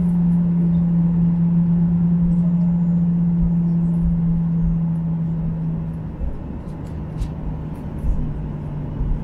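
Cabin noise of a Boeing 737-800 taxiing: a steady low hum from the engines over a rumble, the hum falling off about six seconds in. A few faint clicks near the end.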